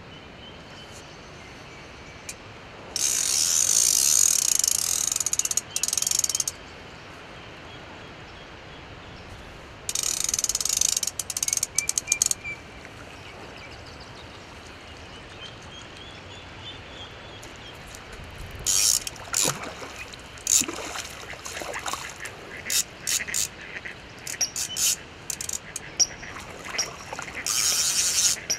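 Centrepin reel's ratchet check clicking rapidly while a hooked carp is played: two long runs of fast clicks early on, then many short spurts of clicks and a last longer run near the end.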